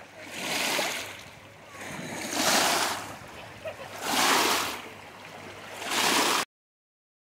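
Water splashing and washing in pebbly shallows, in swells about two seconds apart. The sound cuts off suddenly near the end.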